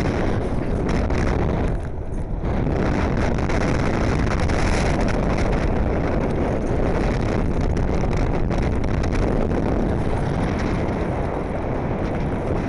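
Heavy wind buffeting the microphone of a camera riding on a moving Blokart land yacht, a steady loud rush with a brief lull about two seconds in.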